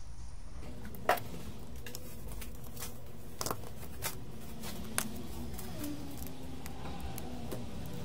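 A few light clicks and taps as a disassembled iPhone 6s Plus is handled and set down on a silicone repair mat, over a steady low hum.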